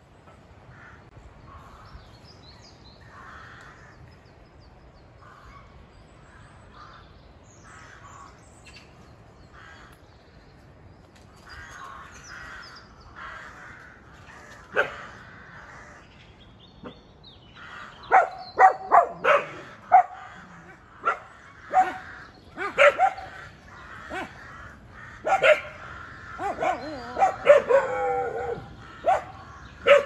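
A dog barking: a quick, irregular run of loud, sharp barks in the last third, after faint scattered sounds earlier.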